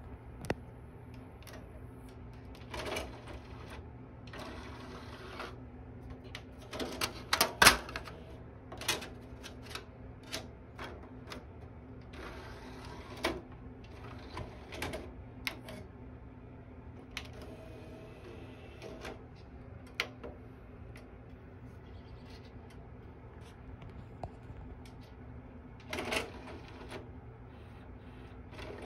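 Pioneer PDR-W37 CD recorder/changer's disc-tray and loading mechanism at work: scattered clicks and clunks with short motor whirs, loudest in a cluster of clunks about 7 to 8 seconds in.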